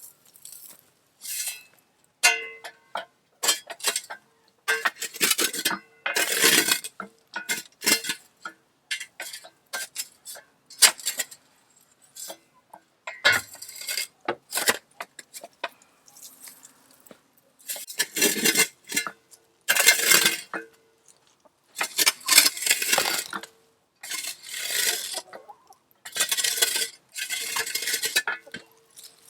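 Hard tools scraping and clinking against a hard container or surface, in irregular strokes of about a second with short gaps between them; some strokes carry a faint ring.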